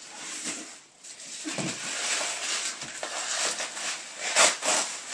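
Thin gift-wrapping paper rustling, crinkling and tearing as a present is unwrapped by hand, in uneven bursts with the loudest rip near the end.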